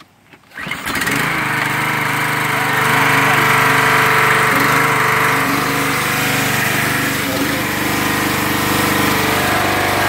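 Troy-Bilt 2800 PSI pressure washer's small gas engine starting about a second in and then running steadily and loudly, the sign that the non-starting engine now starts after its repair.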